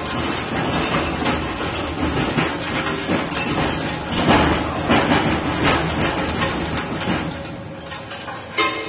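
Scrap rebar cutting machine running under load: a dense, irregular metallic clatter and crunch of steel bars being chopped, swelling louder about four to five seconds in.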